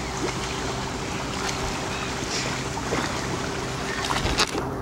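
A steady low motor hum at a constant pitch, mixed with wind and outdoor noise, with a short burst of clattering or splashing about four and a half seconds in.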